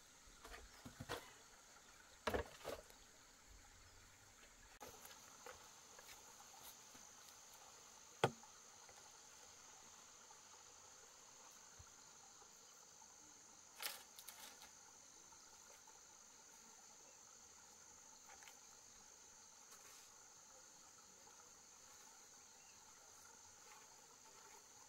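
Faint, steady chirring of insects, with a few light knocks in the first three seconds, one sharp knock about eight seconds in and a brief noisy scrape about fourteen seconds in.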